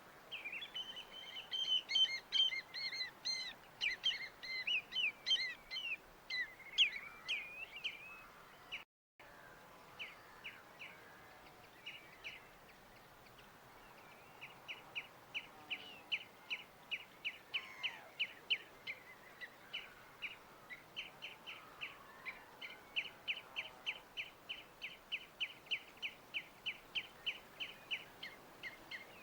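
Songbirds singing: a jumble of varied chirps and whistles, a sudden break about nine seconds in, then a long run of quick, evenly repeated short notes, about three or four a second.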